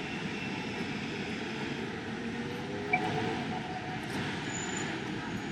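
Steady city street traffic noise, a continuous rumble of passing vehicles, with one short sharp click about three seconds in.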